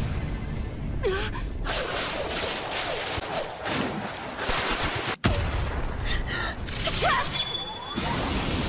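Animated fight sound effects of a super-strength punch smashing rock: a dense crashing, crumbling noise of breaking stone with a few short gasps and grunts. About five seconds in the sound cuts out for an instant, then a sudden heavy impact hits.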